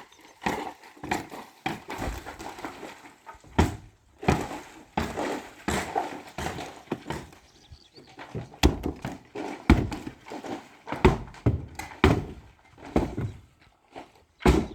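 Irregular knocks, thuds and scrapes of masonry repair work, coming a few a second with uneven gaps.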